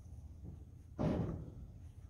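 A single dull clunk about a second in, with a short echoing tail: the old barn's structure knocking in the wind.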